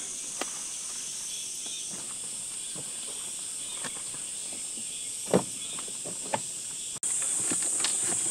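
Steady high insect chirring, with scattered light knocks and one louder knock about five seconds in. The chirring gets louder for the last second or so.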